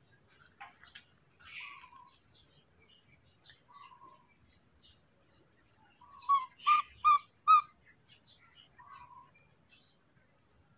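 Infant macaque giving four short, loud, high-pitched squeaky calls in quick succession about six seconds in, with a few fainter squeaks before and after.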